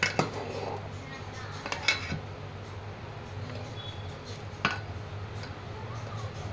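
A spoon stirring milk payasam in a metal pan, knocking and scraping against the pan about three times, over a steady low hum.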